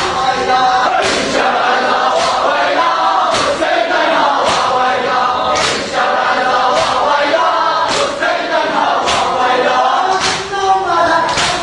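A group of men chanting a mourning lament together, with a sharp slap in time about once every second: rhythmic chest-beating (matam).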